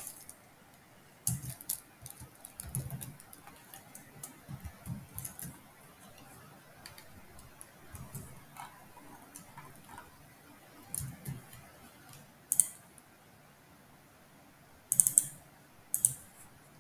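Computer keyboard typing and mouse clicks: scattered keystrokes in short runs with pauses, then a few sharper clicks near the end.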